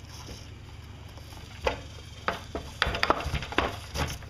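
Knocks and clicks of the Stihl TS 420 cut-off saw's belt arm assembly being slid off its mounting studs and handled, starting about a third of the way in and coming thickest in the second half.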